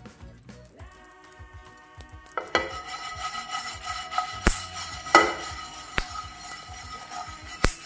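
Whole spices, garlic and ginger being stirred as they dry-roast in a nonstick frying pan, with four sharp knocks against the pan in the second half, over background music.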